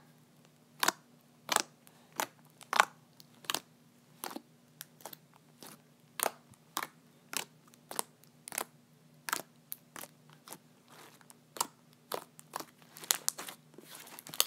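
Thick, glittery slime being poked and pressed by fingers, giving a string of sharp little clicks and pops at irregular intervals, about one to two a second.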